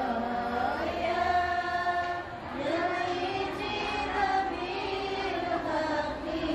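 A group of women chanting an Islamic recitation in unison, holding long notes that rise and fall.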